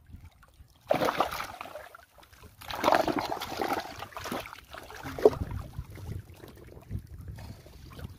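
Water splashing and sloshing as a large rohu is hauled by hand out of shallow water onto the bank, in two loud bursts about a second and three seconds in. Fainter scraping and a few light knocks follow as the fish is handled on the rocks.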